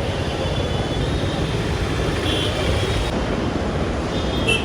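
Traffic on a busy town street: vehicle engines running under a steady road rumble, with a brief high tone about two seconds in and again near the end.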